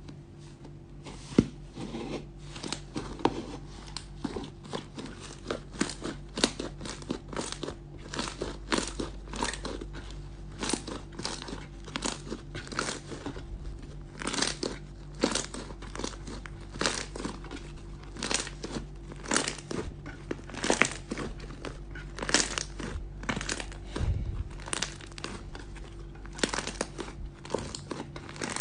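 Slime being squeezed and worked by hand, giving a run of irregular crackles and pops about two a second, over a faint steady hum.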